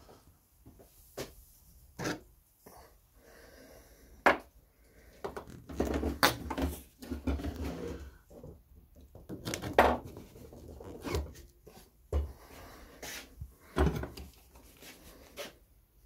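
Irregular knocks, clicks and rubbing: handling noise as the camera is moved about, with a few sharp taps and short low rumbles. The vacuum is not yet running.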